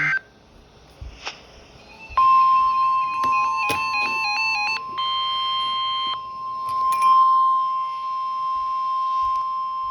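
NOAA Weather Radio warning alarm, the steady single-pitch 1050 Hz attention tone, starting about two seconds in and holding to the end. For its first few seconds a stepping electronic alert melody plays over it, followed by a held chord. The tone signals that a warning message is about to be broadcast.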